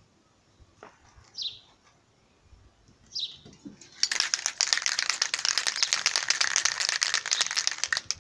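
Aerosol spray-paint can being shaken hard, its mixing ball rattling quickly and loudly inside. The rattle starts about halfway through and stops just before the end.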